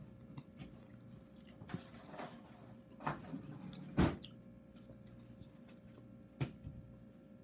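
A handful of short, soft clicks and wet squishes from wooden chopsticks and tableware being handled over a bowl of dumpling soup, the loudest knock about four seconds in. A faint steady hum runs underneath.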